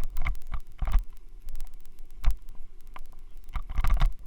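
Rattle and vibration from a loose helmet mount, carried into a Xiaomi Yi action camera's microphone: a rapid, irregular clatter of clicks over a low rumble, with louder bursts about a second in, around two seconds in and near the end. The noise comes from the mount, not the camera.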